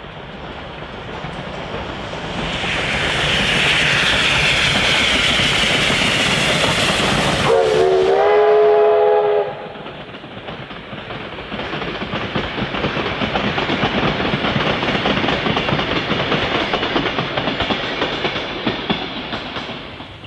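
Steam locomotive hauling a passenger train comes up and crosses a timber trestle bridge, its running noise growing loud. About seven and a half seconds in it sounds its steam whistle for about two seconds, a chord of several tones that lifts slightly at the start. The carriages then roll across with a steady clatter of wheels.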